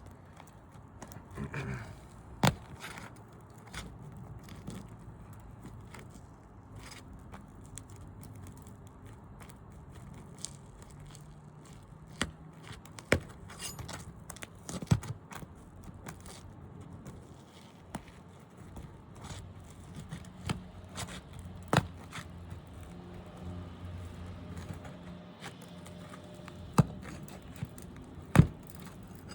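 Scraping and scattered sharp taps and clicks from hand tools working on asphalt roof shingles during a wind-damage shingle repair, over a low steady hum.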